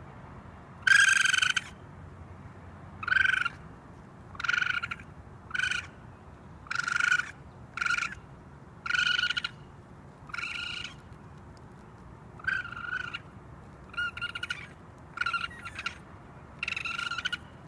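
Raccoon calling: about a dozen short, high-pitched calls, one every second or so, some with a quick trembling flutter. The first call is the loudest.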